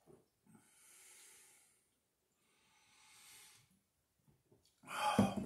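A man drinking malt liquor from a 40-ounce glass bottle, breathing through his nose in two long, soft breaths between gulps. Near the end there is a much louder exhale.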